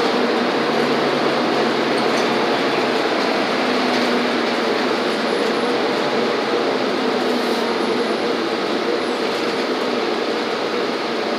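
Steady engine and road noise inside a city transit bus as it drives along, with a faint low drone.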